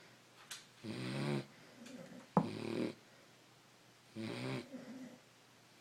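Sleeping beagle snoring, three snores about a second and a half apart, the middle one starting with a sharp click.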